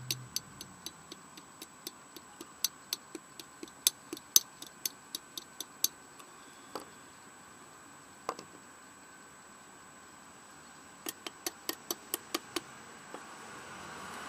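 Screwdriver clicking on a Briggs & Stratton lawn-tractor carburetor as a screw is worked into it: sharp metal clicks at about two to three a second, a pause in the middle, then another short run of clicks near the end.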